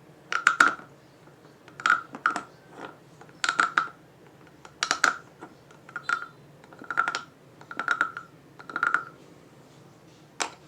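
Wooden croaking frog being rasped with its stick along the ridged back: a short run of rapid clicks with a hollow wooden ring, repeated about once a second for some nine croaks, then a single click near the end.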